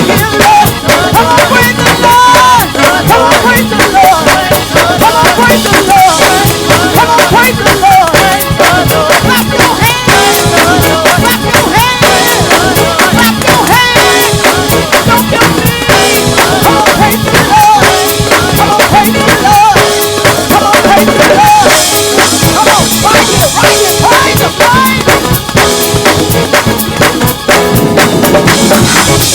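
Live gospel praise band playing an up-tempo groove: a drum kit driving with dense snare and cymbal hits over bass and keys, with voices singing.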